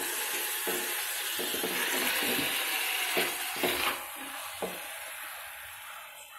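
Hot coconut oil sizzling in the bottom of a pressure cooker as a whole marinated chicken is set into it, with a few soft knocks against the pot. The sizzling fades over the last couple of seconds.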